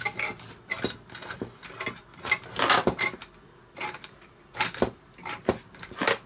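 Scattered clicks and knocks of a hand moving a 3D-printed plastic and stainless-tube CNC axis assembly, with a denser patch of rattling about halfway through and a few sharp clicks near the end.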